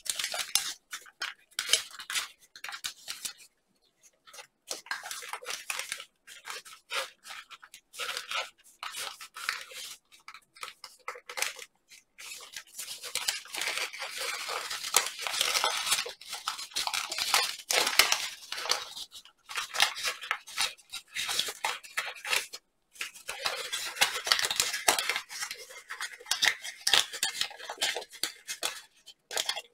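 Thin paper crinkling and rustling as an origami model is folded and shaped by hand, in irregular crackling bursts with brief pauses.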